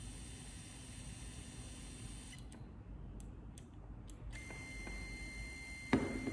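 Stepper motor of a belt-driven linear actuator running with a steady high-pitched whine that starts about four seconds in, with a sharp knock near the end.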